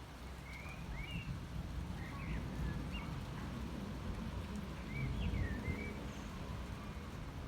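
Small birds chirping: short, quick up-and-down calls, about a dozen scattered through, over a low, uneven outdoor rumble.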